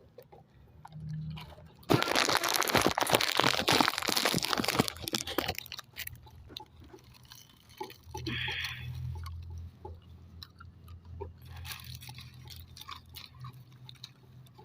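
Loud crunching and crackling starting about two seconds in and lasting about three and a half seconds, then softer scattered clicks over a low hum.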